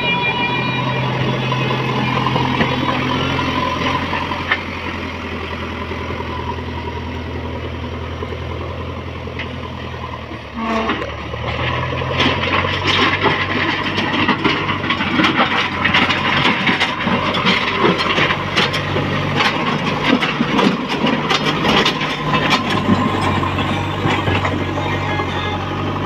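JCB backhoe loader's diesel engine running steadily. From about halfway through, many sharp clicks and crunches join it as the front bucket pushes stones and soil.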